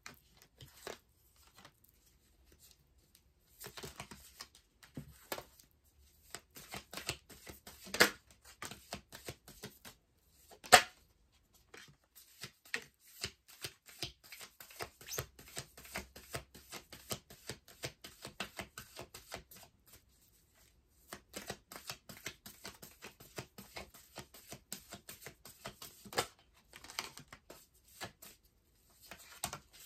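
A deck of oracle cards being shuffled by hand: a quick run of soft card clicks and flutters, broken by a pause near the start and another about two-thirds of the way through. There are two sharper, louder snaps about a third of the way in, a few seconds apart.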